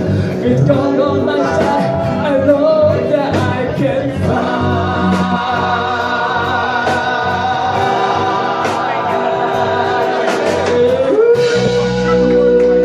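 Gospel-style singing over backing music, with wordless vocal runs and, near the end, a long held high note.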